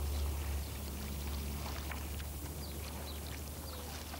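Outdoor location ambience: a steady low rumble under a faint hiss, with a few faint, short high chirps.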